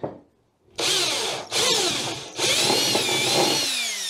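Cordless drill with a step bit boring a hole through the side of a plastic bucket, in three runs starting about a second in: two short bursts, then a longer run whose pitch wavers under load and falls as the motor winds down near the end.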